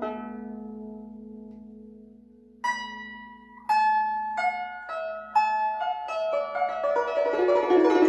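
Guzheng, the 21-string Chinese zither, played with finger plucks: a low note rings with a slight waver and slowly fades. Then single plucked notes come in about once a second and quicken into a fast, louder run of notes near the end.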